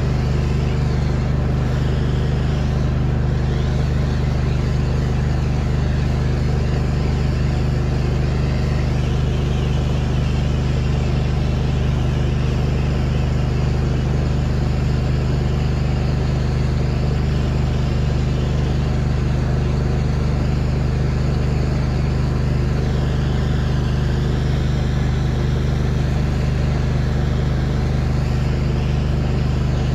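An engine running steadily at a constant speed, a continuous low hum with no change in pitch or level.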